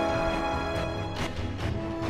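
Instrumental background music: sustained notes with a few percussive hits.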